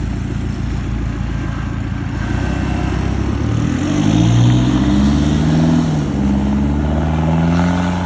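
Toyota Hilux pickup with a modified exhaust, its engine running steadily at first, then revving up about three seconds in. The pitch climbs to a peak, drops back, and rises again near the end.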